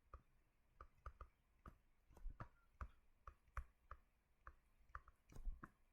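Near silence with faint, irregular small clicks, about two or three a second, a little denser about five seconds in.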